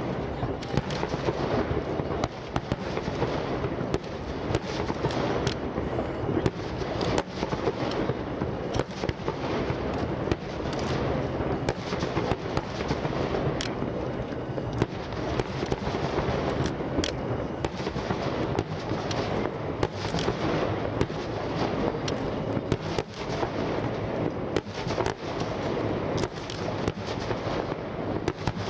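Water starmine fireworks: a continuous barrage of shell bursts, many sharp bangs a second over an unbroken rumble and crackle, with no pause.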